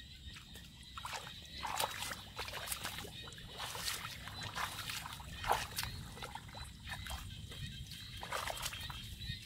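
Bare feet squelching and splashing through shallow muddy water, in irregular wet steps with one louder splash about halfway through.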